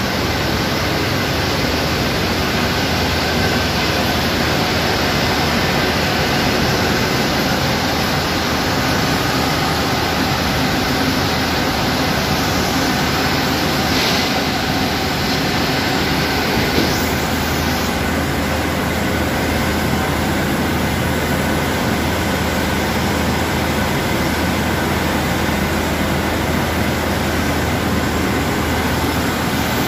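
Draw frames and other spinning-mill machinery running together: a loud, steady mechanical din with faint steady hums underneath.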